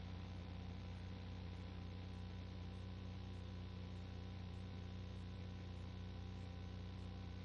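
Steady low electrical hum with hiss over it.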